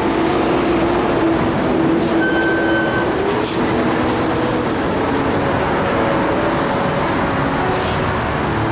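Steady rushing road and traffic noise heard from a bicycle being ridden along a city street, with a faint hum that rises slightly in pitch about three seconds in.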